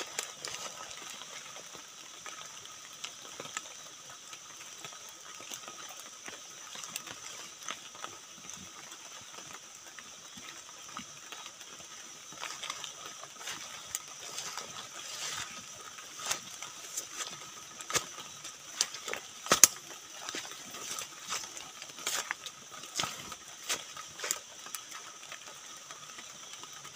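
Night forest ambience: a steady, high-pitched insect chorus with irregular ticks and clicks scattered through it, a few louder ones in the second half.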